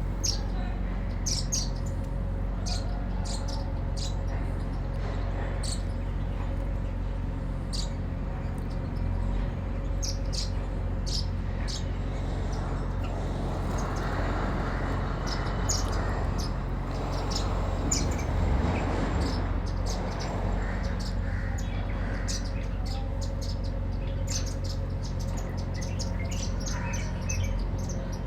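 Sparrows chirping in quick, short high notes again and again, over a steady low hum.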